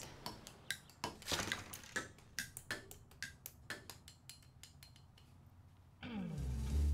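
A run of irregular light clicks and taps, like small objects handled on a desk, that thin out over a few seconds. Near the end a sliding note leads into guitar music.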